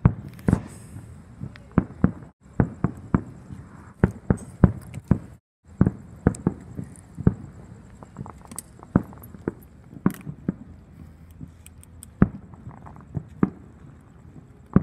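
Fireworks going off: many sharp bangs and pops at irregular intervals, often several a second. The sound cuts out briefly twice, in the first half.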